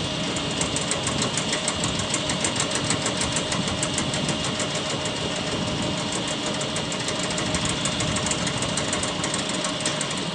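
Standing freight locomotive's machinery running steadily, with a rapid, even clatter of about five beats a second.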